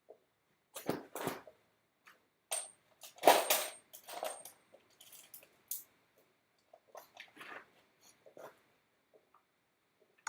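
A series of irregular knocks and clinks of hard objects being handled, the loudest about three seconds in, with smaller taps after it.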